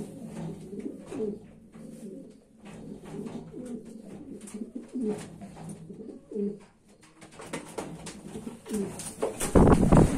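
Racing pigeons cooing again and again, low and wavering. Near the end, a loud short rustle of handling close to the microphone.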